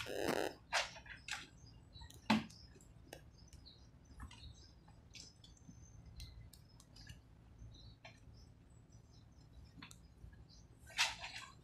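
Clothes being hand-washed in a plastic bucket of water: wet fabric squelching and water splashing in short bursts, the biggest near the start and near the end, with faint bird chirps in between.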